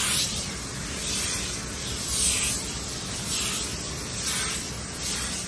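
Handheld garment steamer hissing as its steam head is worked over tent fabric, the hiss swelling and easing about once a second with each stroke.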